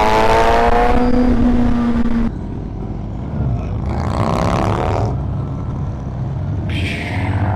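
Suzuki GSX-R600 inline-four sport-bike engine heard from the rider's seat, its note falling steadily over the first two seconds as the bike slows. Wind then gusts over the microphone twice while riding on.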